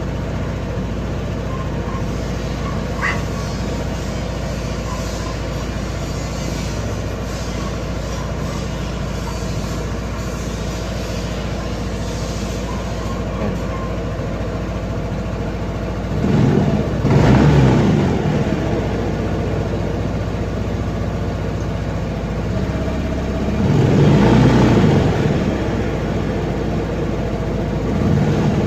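Honda Click scooter's single-cylinder engine idling steadily, then revved twice, about 16 and 23 seconds in, each rev lasting two or three seconds before dropping back to idle. The revs test the charging system: the battery voltage rising to about 14 V shows it is charging and the battery is still good.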